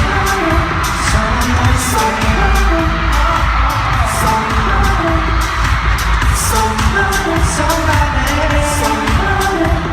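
K-pop boy group singing live over a loud pop backing track with heavy bass and a steady beat, heard through a concert sound system.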